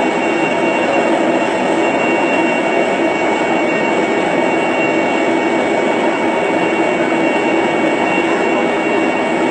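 Steady turbine noise of a parked airliner, heard from inside its cargo hold, with two thin high whine tones held over it.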